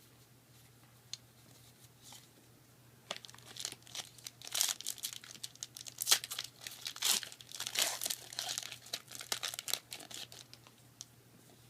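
A Yu-Gi-Oh booster pack's plastic-foil wrapper being torn open and crinkled, a few seconds in, with a run of sharp crackling and ripping that fades near the end.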